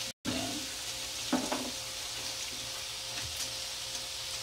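Beaten eggs sizzling in hot oil in a nonstick pan as they are pushed around with a silicone spatula: a steady frying hiss. A brief louder sound comes about a second and a half in.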